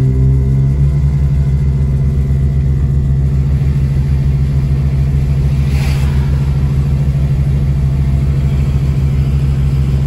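A car's onboard air compressor for an air horn, running with a steady, rapidly pulsing low drone, heard from inside the moving car. There is a brief rush of noise about six seconds in.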